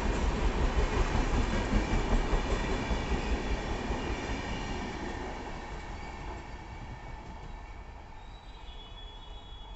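Express train's coaches passing at speed, with steady wheel-and-rail noise, then fading away from about four or five seconds in as the end of the train draws away.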